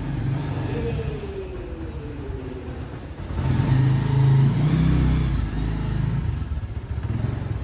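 Road vehicle engine running as the vehicle drives off, with a low rumble. It grows louder from about three seconds in as it accelerates, then settles.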